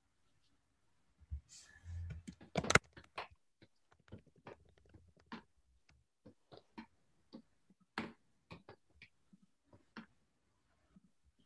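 Typing on a computer keyboard: irregular key clicks, about two a second, with a rustle and one sharper knock about two to three seconds in.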